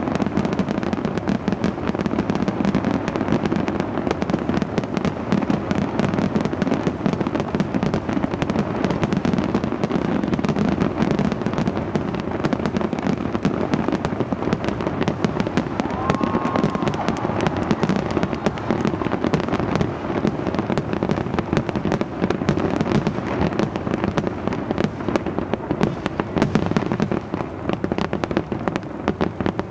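Fireworks display: a dense, unbroken barrage of bangs and crackles.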